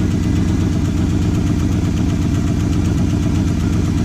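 1972 Jeep Wagoneer engine idling steadily after a cold start, running smoothly and not missing a beat.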